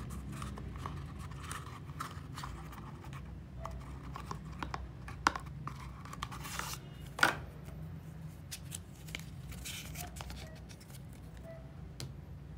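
A small cardboard box being handled and folded: papery rustling and scattered light clicks and scrapes, with two sharper snaps about five and seven seconds in.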